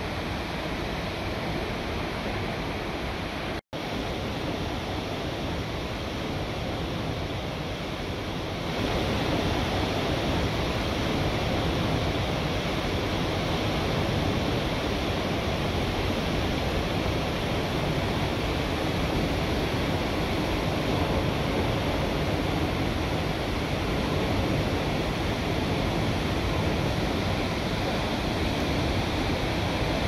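Steady rushing of a waterfall, broken by a brief dropout a little under four seconds in and louder from about nine seconds in.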